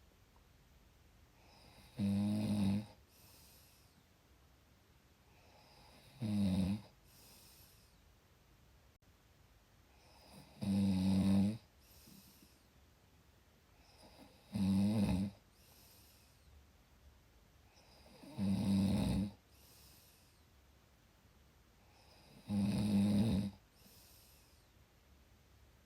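A person snoring in a slow, even rhythm: six loud, rattling snores about four seconds apart, each followed by a faint breath out.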